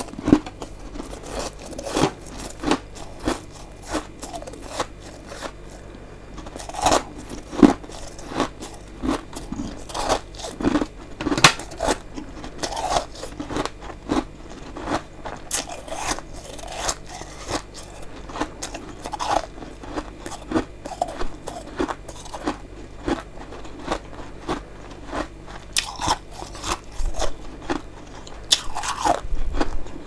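Close-miked biting and chewing of freezer frost: a steady run of irregular, crisp crunches.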